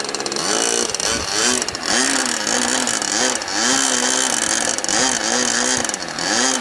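Model airplane engines of radio-control sport planes buzzing in flight, their pitch repeatedly swooping up and down as the planes pass and turn.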